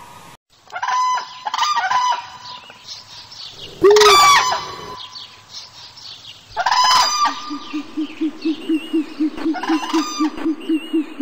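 Chicken and rooster calls: squawking and clucking in separate bursts, a loud crow-like call about four seconds in, then a quick run of low clucks, about three a second, from about seven seconds on.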